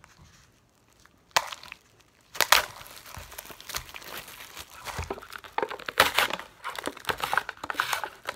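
Clear plastic wrap being torn and crinkled off a Nissin Cup Noodles cup by hand. The crackling comes in irregular bursts, starting about a second and a half in.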